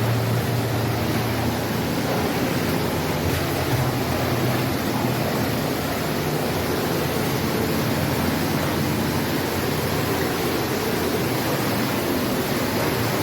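Steady rushing of a hidden underground waterfall, echoing through the mine tunnels.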